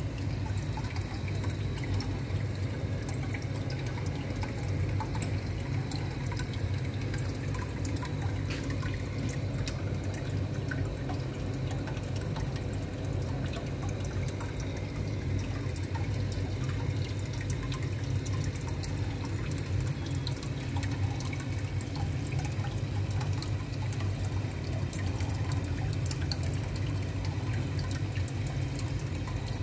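Aquarium filters and aeration running: water trickling and bubbling with small drips, over a steady low hum.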